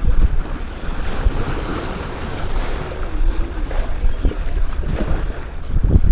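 Strong wind buffeting the microphone over water rushing and slapping along a small sailboat's hull, with low irregular gusts of rumble.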